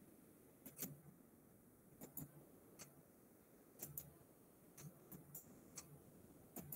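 Faint, sharp computer mouse clicks, many in quick pairs like double-clicks, coming irregularly about once a second while files are opened.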